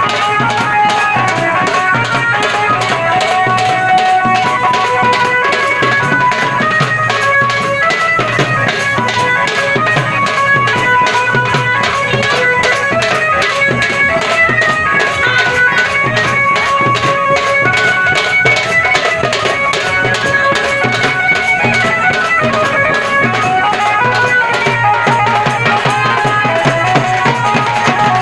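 Band baja procession music: fast, steady drumming with a melody line played over it, without a break.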